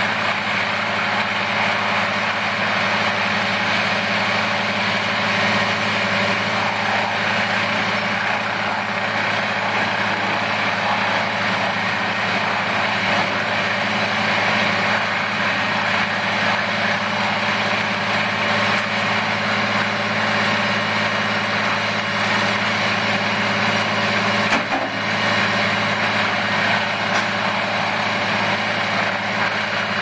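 Heavy machine engine running at a steady speed, with a brief dip in level about 25 seconds in.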